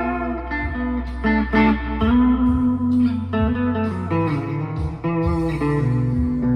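Chapman ML1 Pro Hybrid electric guitar played through an amp with delay and reverb: a melodic line of held single notes that change every half second to a second.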